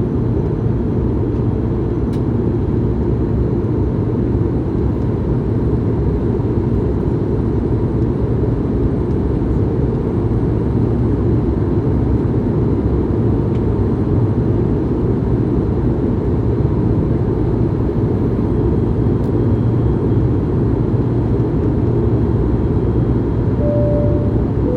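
Steady low cabin drone inside an Airbus A220-100 in its climb: engine and airflow noise from its Pratt & Whitney PW1500G geared turbofans, unchanging throughout.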